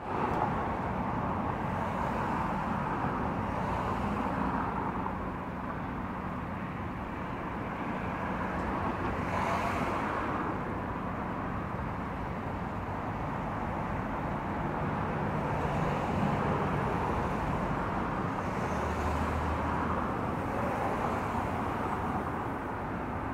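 Steady road traffic noise from cars on a highway, swelling and fading as vehicles pass.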